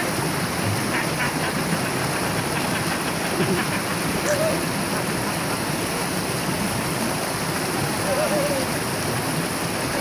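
A small river cascade rushing steadily through a narrow rock chute into a pool below.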